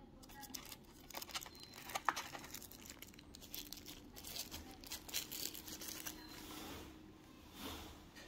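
White wrapping crinkling and tearing as it is pulled off a wireless earbuds charging case, a run of irregular crackles with louder ones about two and five seconds in.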